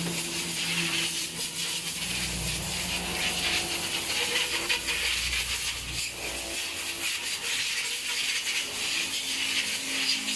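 Steady hissing noise with faint mechanical rattles.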